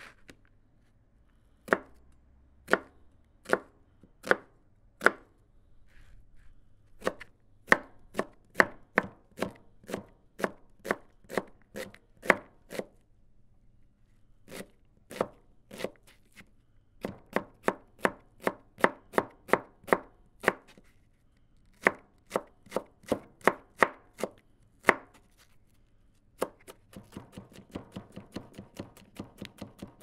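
Chef's knife chopping onions on a cutting board: sharp knocks in runs, some slow and spaced, others quick at two or three a second, with a fast flurry of lighter chops near the end.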